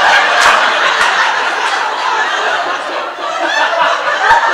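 Live theatre audience laughing loudly, with a few scattered claps.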